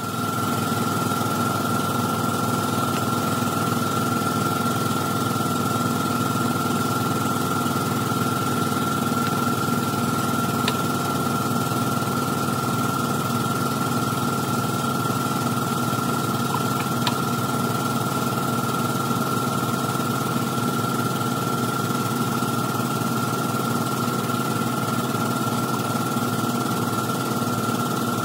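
A motor running steadily, with a constant high whine over a fast low rumble. Two faint ticks come through partway along.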